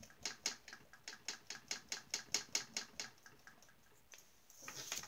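Paintbrush tapping oil paint onto a stretched canvas to form a bush: quick, light taps about five a second that stop after about three and a half seconds. A brief scratchy swish near the end.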